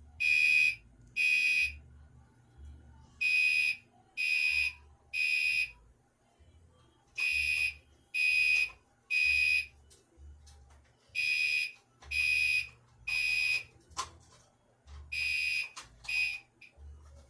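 Gentex Commander 3 fire alarm horn on its low setting, sounding the temporal code 3 evacuation pattern: three short high beeps, a pause, repeating about every four seconds. It cuts off partway through the last set, near the end.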